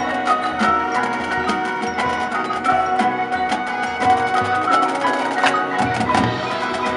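Percussion-led music: rapid clicking strokes over held, pitched notes.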